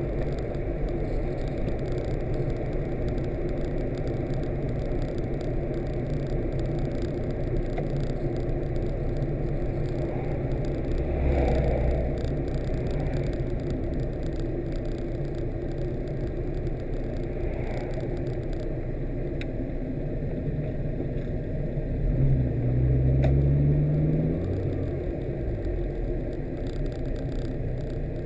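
Car running on the road, heard from inside the cabin: a steady engine and tyre hum, with a brief swell about eleven seconds in and the engine note rising for a couple of seconds about twenty-two seconds in as it picks up speed.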